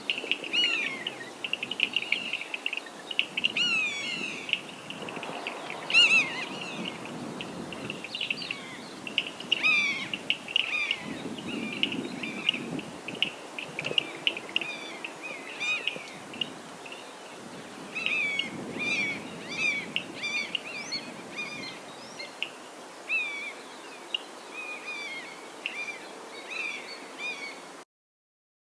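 Common (Steppe) Buzzard calling amid dense bird calls: many short, high calls, often sliding downward, repeating continuously. The recording stops abruptly near the end.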